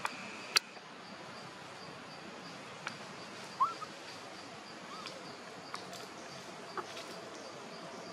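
Forest ambience: a steady background hiss with a faint, evenly repeating high tick, several sharp clicks, and two or three short chirps, the loudest chirp about halfway through.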